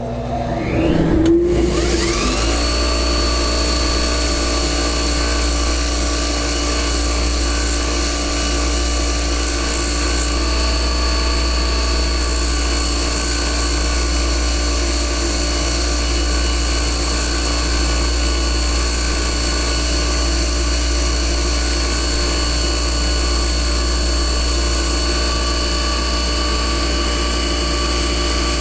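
A bench belt grinder spins up about a second in, its tones rising, then runs at steady speed with a high whine, over the low drone of a shop ventilation fan. It is used for sanding a bore-through shaft flush with a golf club head's sole.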